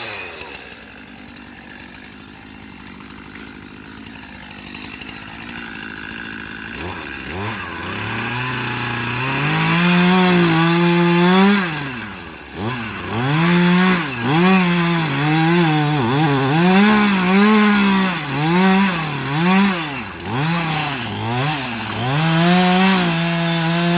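Chainsaw running, low at first, then revved up about seven seconds in and throttled up and down over and over, its pitch climbing and dropping with each rev.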